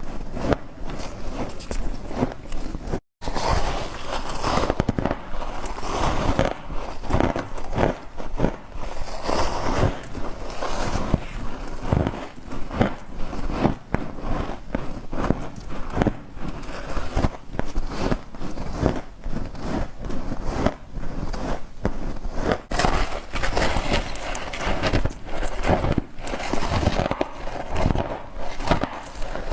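Frost being bitten and chewed, a dense run of crackling, crunching bites that keeps going, with a momentary break about three seconds in.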